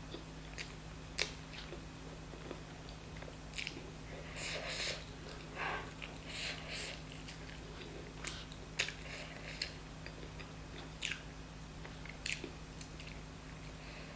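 Close-up chewing and mouth smacking of someone eating chicken curry and rice, with scattered sharp wet clicks and short smacks, over a steady low hum.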